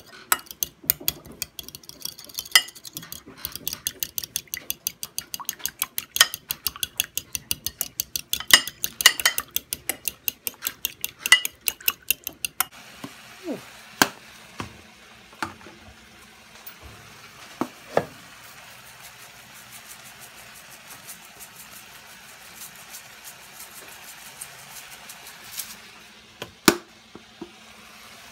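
A metal spoon clinking rapidly against a ceramic bowl as a sauce is stirred. About twelve seconds in the clinking stops, and pork chops sizzle steadily in oil in a frying pan, with a few scattered knocks.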